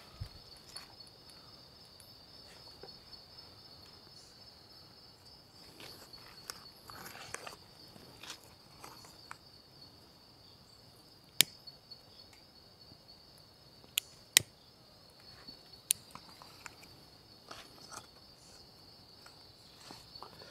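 Steady chorus of night insects, a continuous high trill. It is broken by a soft rustle and by a few sharp clicks past the middle, the loudest being two close together about two-thirds of the way in.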